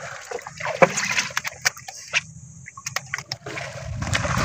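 Water splashing and sloshing, with scattered sharp clicks and knocks; a low rumble builds near the end.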